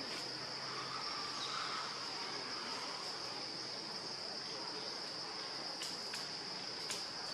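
Insects buzzing in a steady high-pitched drone over forest ambience, with a few faint clicks near the end.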